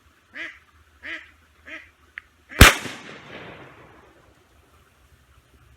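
Ducks quack three times. Then a single shotgun blast goes off about two and a half seconds in, its echo dying away over about a second and a half.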